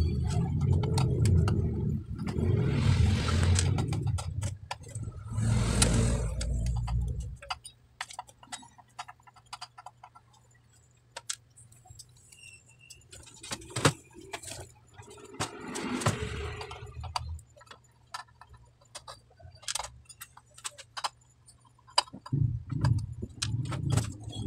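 Hands moving an amplifier's circuit board and wiring inside its metal chassis: scattered clicks and light rattles. A low rumble runs under the first seven seconds or so and stops.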